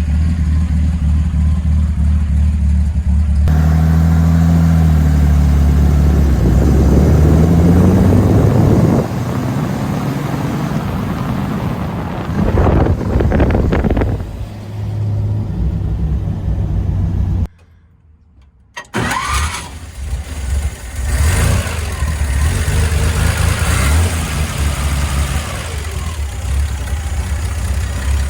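1953 Chevrolet 3100 pickup's straight-six engine running through headers and dual glass-pack exhausts, idling steadily and being revved several times. The sound drops out for about a second two-thirds of the way in, then the engine idles on with short throttle blips.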